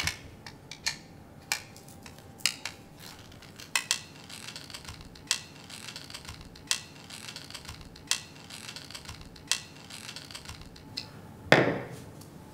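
Light metallic clicks and taps from handling a fuel pump on its sending-unit bracket, about one every second or so as the pump is slid along and adjusted. A short vocal sound comes near the end.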